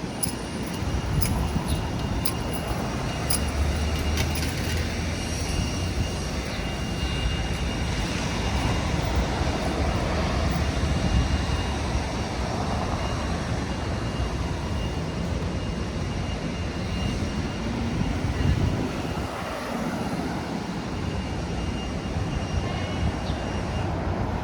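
Wind rushing over the microphone and city traffic noise during a ride on an electric unicycle. The rumble is steady, with a thin high whine running underneath until near the end and a few light clicks in the first seconds.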